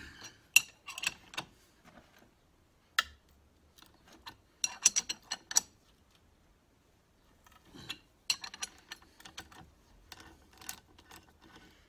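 Scattered metallic clicks and clinks of a hand tap and T-handle tap wrench being turned, lifted and refitted in a bolt hole of a lorry's front wheel hub, in short clusters with pauses between. The tap is binding on a leftover piece of the old bolt and will not go all the way through.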